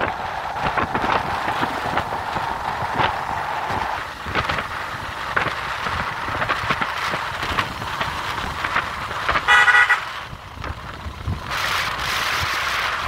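Wind and road noise from a moving motorcycle, with one short vehicle-horn beep about nine and a half seconds in, the loudest sound here.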